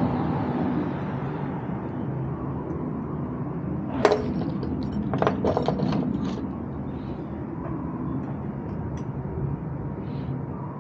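A few sharp clicks and knocks of small parts and tools being handled while a headlight is fitted to an e-bike's handlebar stem, a cluster of them about four to six seconds in, over a steady outdoor background rumble.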